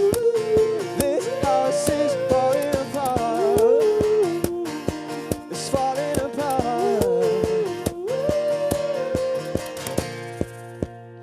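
Acoustic band playing a wordless passage: strummed acoustic guitar over a steady beat of sharp percussive hits, with a sustained melody line on top. It fades near the end.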